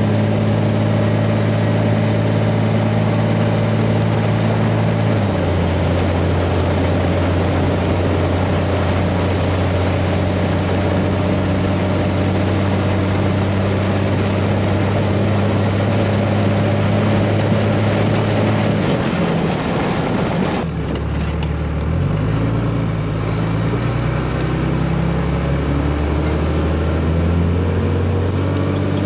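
A 24-valve VP44 Cummins turbo-diesel inline-six pulling a truck down the road, with a stock-size exhaust, aftermarket muffler and turndown, and an HY35 turbo with its silencer ring removed, heard from inside the cab. The steady engine note steps down about five seconds in. Around twenty seconds in the sound thins and the note sinks, then climbs again near the end.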